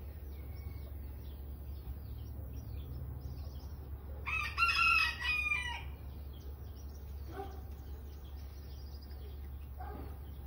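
A rooster crows once, loud, starting about four seconds in and lasting about a second and a half. Soft short chicken clucks follow a few times.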